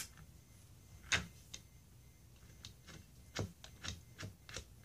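Sharp little metal clicks and taps from a throttle body being seated against its intake manifold and its screws being set by hand: one click at the start, the loudest about a second in, then a run of irregular clicks in the last two seconds.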